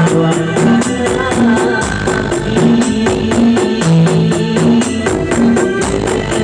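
Loud music with a quick, even beat and a stepped bass line of held notes, played through a large parade sound system (sound horeg).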